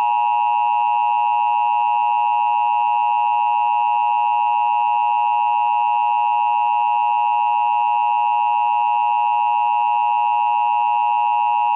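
Emergency Alert System attention signal: two steady tones sounded together at 853 and 960 Hz, a loud, unbroken, harsh dual-tone drone. It marks the start of an emergency alert, with the spoken message to follow.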